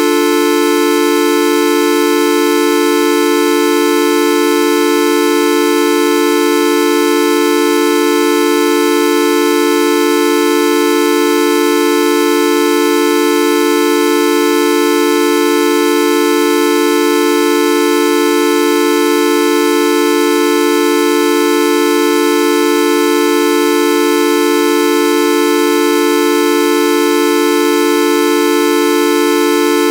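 A loud, unbroken, buzzy tone held at one pitch, with many overtones: a looped horn-like sound effect that does not change at all.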